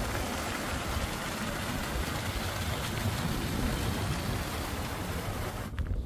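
Small moorland stream rushing and splashing over a little fall, a steady hiss of water with low wind rumble on the microphone. It cuts off near the end.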